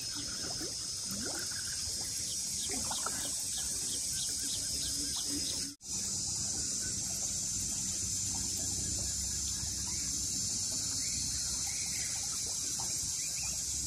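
Outdoor wetland ambience: a steady high-pitched insect buzz with faint water trickling and sloshing as a fishing net is dragged through shallow water. The sound drops out briefly about six seconds in.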